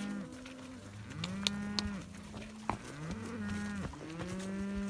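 Several beef cows mooing one after another, long low calls that overlap, with a few short sharp clicks between them.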